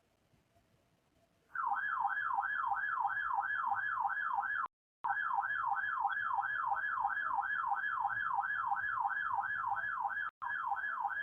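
Electronic warbling alert tone, its pitch sweeping up and down about three times a second, starting about a second and a half in. It breaks off briefly twice.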